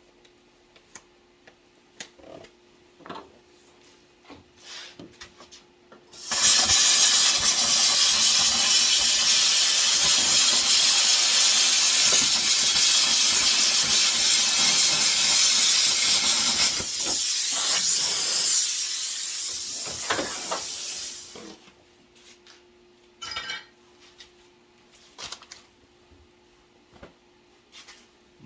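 A power cutting tool cutting through a Pontiac Firebird's body metal to make room for a roll cage: a loud, steady hiss for about fifteen seconds, easing somewhat near the end before it stops. Scattered light clicks and knocks from handling come before and after.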